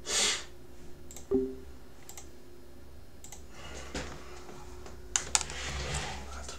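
Scattered sharp clicks of a computer mouse and keys, a pair of them close together near the end, over a faint steady hum, with a short rush of noise right at the start.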